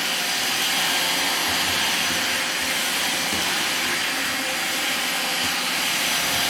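Makita CL100DZ 10.8 V cordless vacuum cleaner running steadily with its carpet nozzle fitted: a steady rushing hiss with a faint high whine from the motor.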